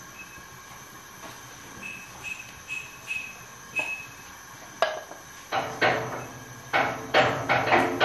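Kitchen utensils and cookware handled: a few light ringing clinks, then from about halfway a quick series of louder knocks and clatter.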